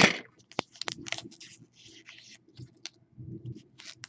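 A football trading-card pack being opened and its cards handled: a sharp rip right at the start, then a string of scratchy clicks and rustles as the cards slide against each other.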